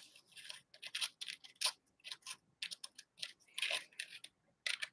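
Light clicks and scrapes of small metal parts on a Stundenglass gravity hookah as a screw in one of its fittings is turned with a small tool: an irregular run of quick ticks.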